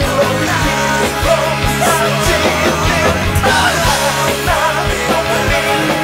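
Rock band playing live: drums keep a driving beat under electric guitars and bass.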